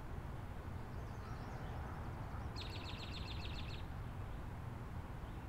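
Outdoor background with a low steady rumble. A little past halfway, a small bird gives one rapid high trill of about a second.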